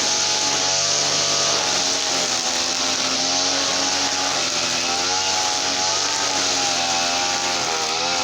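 Small petrol engine of a garden machine running steadily at speed, its pitch wavering slightly up and down.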